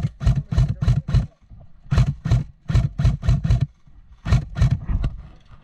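Airsoft gun fired in rapid semi-automatic shots, about three a second, in three strings of sharp cracks: six, then six, then four, with short pauses between them.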